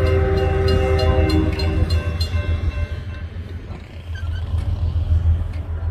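Canadian Pacific freight locomotive's horn sounding a chord, fading out about two to three seconds in, over the steady low rumble of the passing train, with a regular clicking throughout.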